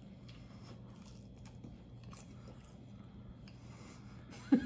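A person biting into and chewing a crispy deep-fried taco, faint crunching of the fried tortilla shell, over a steady low hum.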